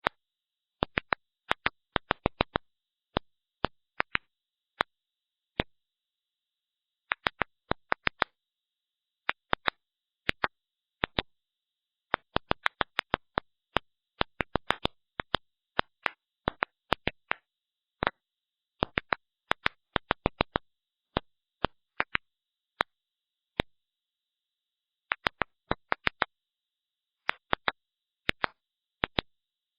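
Plant clicks: sharp, dry pops from plants, ultrasonic in the original recording and brought down into hearing range. They come irregularly, sometimes alone and sometimes in quick clusters of several, with silence between.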